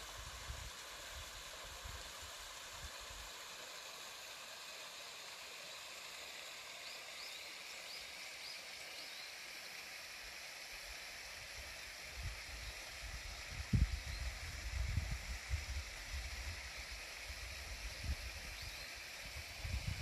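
A small mountain stream running over rocks, a steady rushing hiss, with a few faint bird chirps about halfway through. From about twelve seconds in, low thumps and rumbles on the microphone come and go and are the loudest sound.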